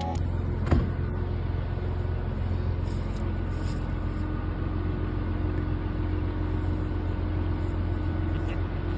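Tugboat engine running steadily with a low, even hum.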